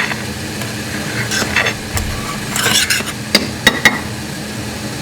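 Metal kitchen utensils and cookware clinking and knocking several times, in a scattered run of sharp clicks through the middle, over a steady low hum.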